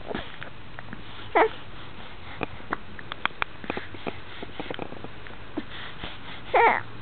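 Hiccups: two sharp voiced hics, one about a second in and one near the end, with small clicks and breathy sounds between.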